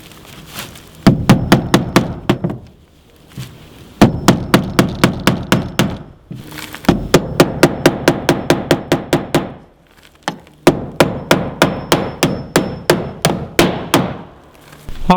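Hammer driving nails into a wooden corner trim board: four runs of quick, even blows, about five or six a second, with short pauses between.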